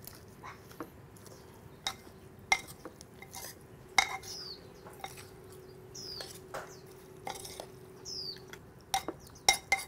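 A metal spoon stirring and scraping chunks of raw meat in marinade inside an unglazed earthenware pot, with irregular clinks and knocks of the spoon against the clay.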